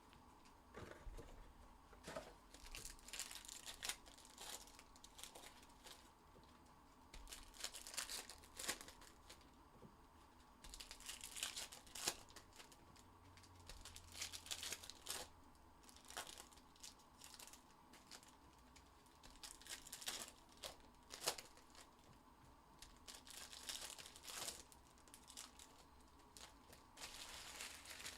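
Faint, intermittent crinkling and tearing of plastic wrapping as sealed trading-card boxes and packs are torn open.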